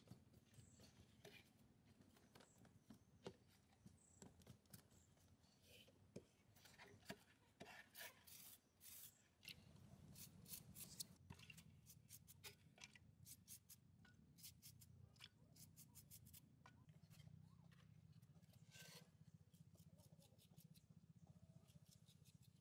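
Near silence: faint scattered clicks and soft scrapes of hand work with a clay pot and a brush on plaster, with a faint steady low hum from about halfway through.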